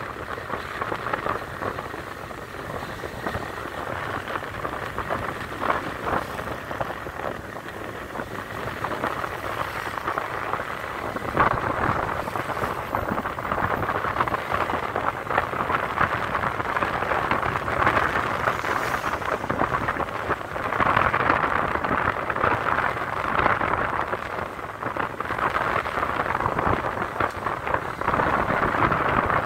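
Wind rushing over the microphone, with road and engine noise from a moving motorcycle. It is a noisy, uneven rush that swells and fades without letting up.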